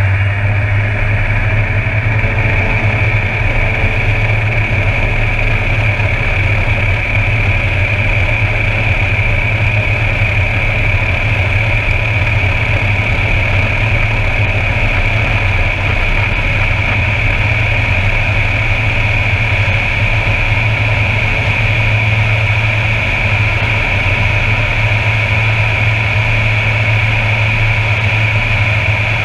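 Air Tractor 402B's Pratt & Whitney Canada PT6A turboprop at takeoff power, heard from inside the cockpit: a steady, deep propeller drone with a steady high turbine whine, through the takeoff run and lift-off.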